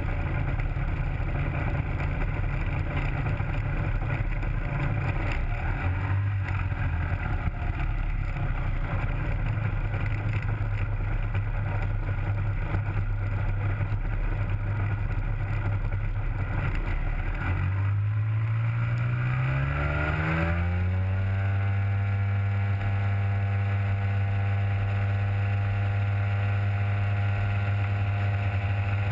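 Rotax 503 two-stroke twin driving a three-blade Warp Drive propeller on a Hy-Tek Hurricane 103 ultralight, running at low throttle while taxiing. About 18 seconds in, the engine note rises smoothly over a few seconds and then holds steady at a higher pitch as the throttle is opened.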